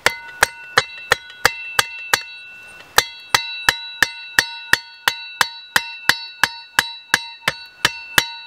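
Flat side of a Schrade folding shovel's steel head used as a hammer, striking the top of a wooden stake about three times a second. Each blow leaves a short metallic ring, with one brief pause about two seconds in.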